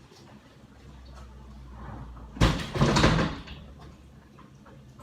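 Kitchen handling noise: a sharp knock about halfway through, followed by about a second of clatter.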